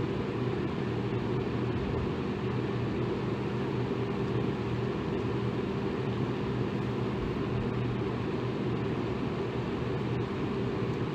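Electric fan running steadily: an even rushing of air with a low motor hum.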